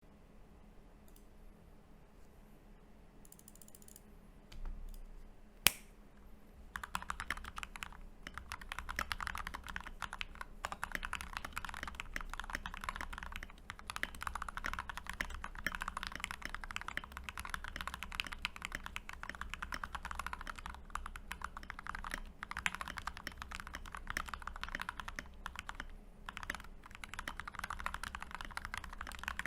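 Typing on a custom Glorious GMMK 1 mechanical keyboard with lubed and filmed Gateron Milky Yellow linear switches. After a quiet start with one sharp click, steady fast typing begins about seven seconds in and keeps going.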